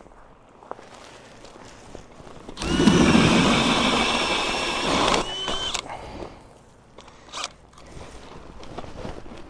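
Powered ice auger boring a test hole through about five inches of lake ice. It starts about two and a half seconds in, runs with a steady whir for about three seconds, and stops.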